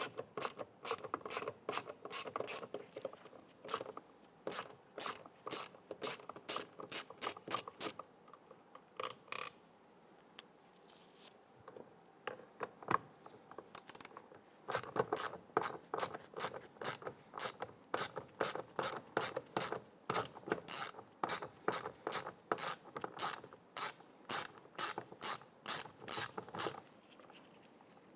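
Hand ratchet with a 7mm socket and extension clicking rapidly as it backs out the door handle's screws. The clicks come about three a second, thin out for several seconds partway through, then resume.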